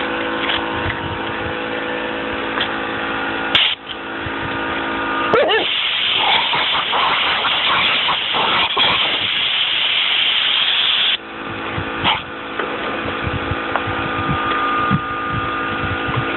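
Compressed air hissing hard from an air-hose nozzle for about seven seconds, starting a few seconds in, while a husky-type dog snaps at the blast. A steady machine hum is heard before and after the hiss.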